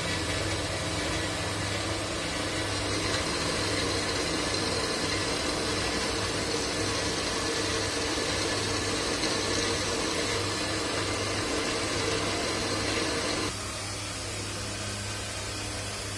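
Metal lathe running with an electric-motor rotor spinning in its chuck: a steady hum with a hiss over it. The lathe is bringing back to size the rotor shaft's bearing seat for a 6201 bearing, built up by welding. About 13.5 seconds in, the higher hiss drops away and the sound gets a little quieter.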